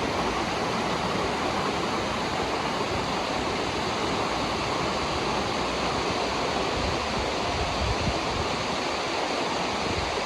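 A waterfall's water rushing down, a steady, even roar of falling and splashing water.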